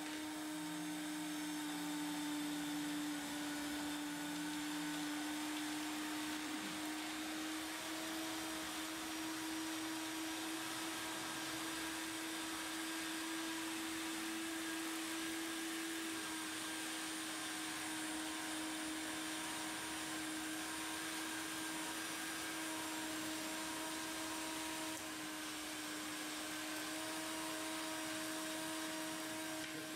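Small electric drive motor of an H0-scale model railway turntable running as the deck slowly rotates: a steady whine with one constant tone over a light hiss.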